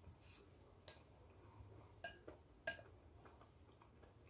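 About four light clinks of chopsticks against a white ceramic bowl, each ringing briefly, the two sharpest in the middle, over near silence.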